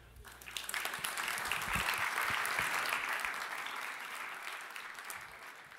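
Audience applauding, building over the first two seconds and then gradually fading away.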